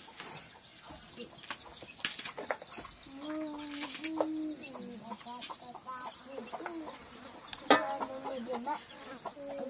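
Domestic hens clucking, with long wavering calls from about three seconds in and again near the end. A few sharp snaps come in between, the loudest a little before the end, as green vegetable stalks are broken by hand.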